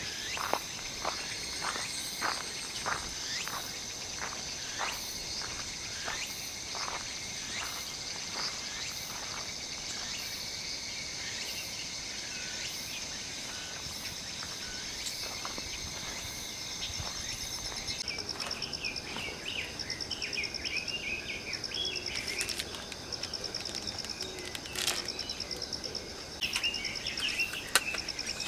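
Outdoor ambience of insects chirping steadily, with footsteps about twice a second over the first third. From about two-thirds in, a fast pulsing cricket trill and short bird calls join in.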